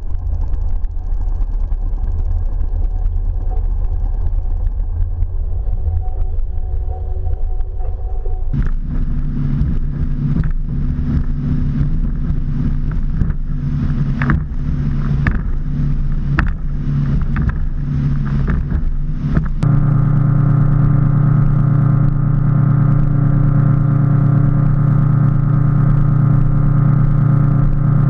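Muffled low rumble heard underwater, then water knocking and splashing against the camera at the surface. About twenty seconds in, a motorboat engine takes over, running loud and steady at speed.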